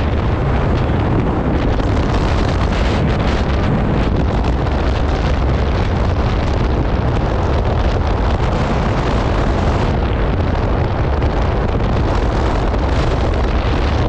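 Steady wind noise buffeting the microphone while riding an ADV 150 scooter at about 80 km/h, with the scooter's running and road noise mixed underneath.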